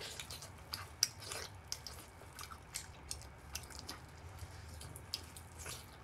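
Close-up mouth sounds of a person eating soft braised trotter meat off the bone: irregular wet smacks, sucking and chewing clicks, several a second.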